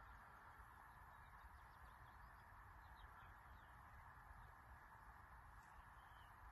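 Near silence: faint outdoor background hiss with a few faint bird chirps.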